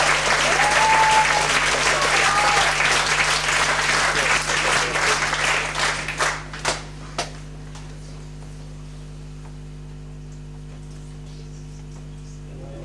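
Audience applauding, dying away with a few last separate claps about six to seven seconds in, leaving only a low steady hum.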